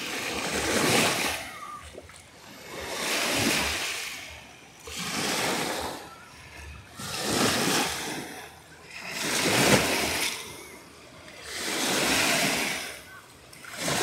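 Lake waves breaking and washing up over a sandy shore, then drawing back. They come in a steady rhythm, six surges of rushing water about every two seconds.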